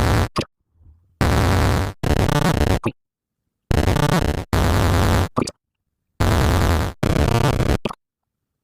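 Soundtrack of a children's video sped up six times, a garbled jumble of music. It comes in short loud chunks of under a second, cut apart by abrupt silences.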